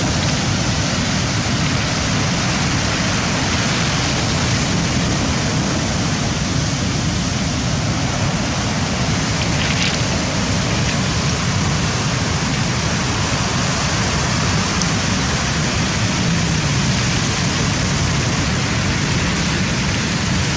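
Steady roar of rough sea surf breaking on the shore, with a constant rushing noise that does not swell or fade.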